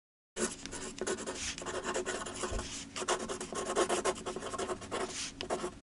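Pen shading rapidly back and forth on paper, a quick scratchy rubbing of many short strokes; it starts just after the beginning and cuts off suddenly near the end.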